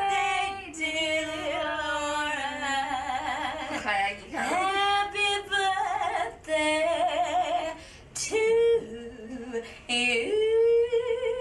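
A young woman singing solo with no accompaniment, a jazz-soul vocal line with several long held notes that waver in vibrato. The voice sounds like it was recorded in a small room.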